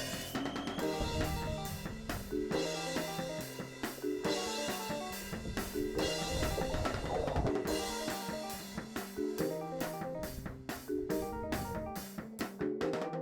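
Background music with a steady drum-kit beat and a repeating melody.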